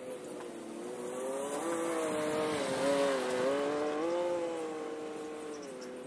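A vehicle engine running under load while pulling a drag across a freshly seeded field, its pitch rising and falling in steps and loudest through the middle.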